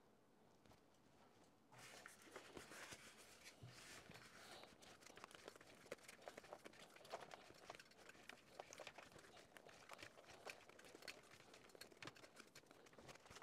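Faint rustling and small clicks of flat ribbon wire being handled and wound on a foam wire winder, starting about two seconds in.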